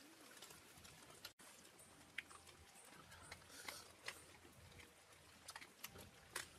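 Near silence with faint, scattered clicks and ticks.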